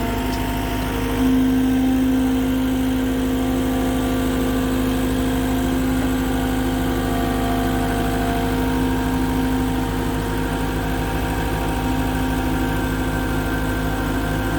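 Engine of the machine carrying the post-hole auger attachment, idling steadily. It gets a little louder about a second in.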